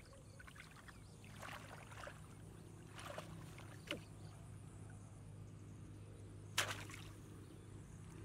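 Hands splashing and sloshing in shallow muddy floodwater, groping for frogs, in a few short bursts; the loudest splash comes near the end. A steady low hum runs underneath.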